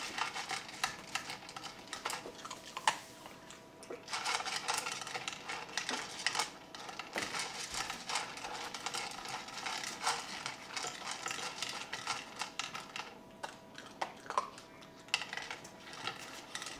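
A Maltese dog eating small dry kibble from a plastic bowl: rapid crunching with clicks and clatter of kibble against the bowl, coming in bursts as it takes mouthfuls.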